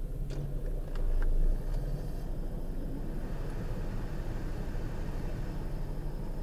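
Peugeot 407 Coupé V6 engine idling, heard from inside the cabin with the air-conditioning blower running, and a few light clicks in the first second or so. From about two seconds in there is a faint high whistle from the AC vent, which the owner takes as a symptom of low refrigerant pressure in the system.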